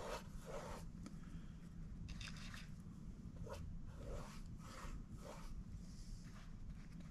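A paintbrush stroking paint onto a painting surface: a series of short, faint scratchy swishes at irregular intervals, over a low steady hum.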